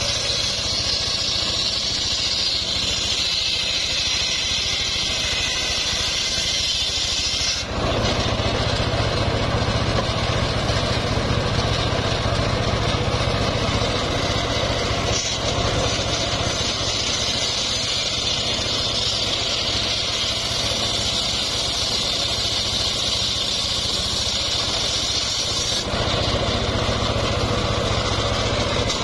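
Homemade bench circular saw running steadily, its large blade ripping a trembesi log lengthwise: a steady low machine hum under the high hiss of the cut. The sound shifts abruptly about 8 seconds in and again near the end.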